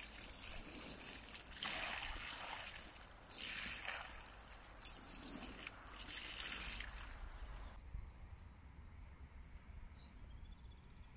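Water poured from a collapsible bucket splashing onto a large common carp on a padded unhooking mat, in several surges, stopping about eight seconds in.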